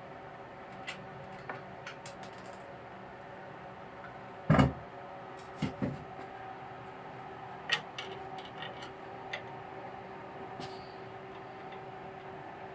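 Steady background hum with one loud, deep thump about four and a half seconds in, two lighter knocks about a second later, then a sharp click and a few small ticks.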